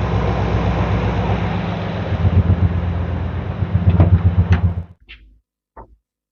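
1971 Chevrolet C10 pickup engine idling with an even low pulse, then switched off about five seconds in, the sound cutting off suddenly. A few short knocks follow.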